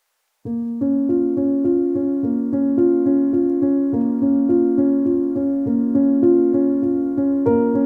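Background music on a piano-like keyboard: a quick, even, repeating pattern of notes that starts suddenly about half a second in.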